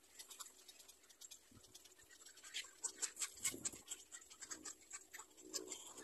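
Faint scratching and rustling: a quick run of small clicks that grows busiest about halfway through, with no calls.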